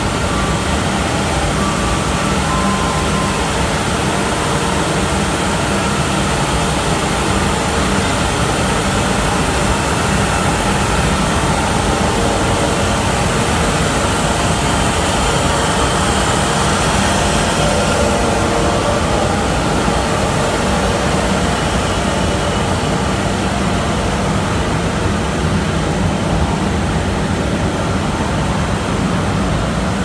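Mesh-type veneer dryer running, its rows of circulation fans and motors making a steady, loud rush of air over a low hum.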